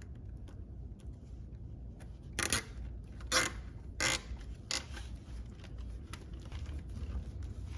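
Plastic zip tie being pulled tight around the wheelchair frame, its ratchet zipping in about four short pulls.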